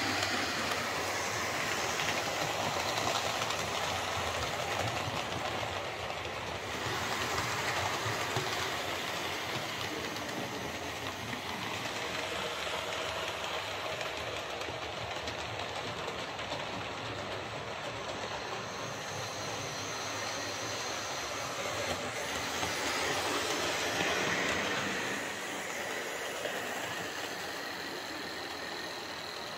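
OO gauge model trains running on the layout track, the repaired Hornby J83 0-6-0 tank loco among them: a steady rattle of small wheels on rail that swells as trains pass close, around seven seconds in and again near the end. The J83 runs without its earlier lurch, its binding rods replaced with a spare set.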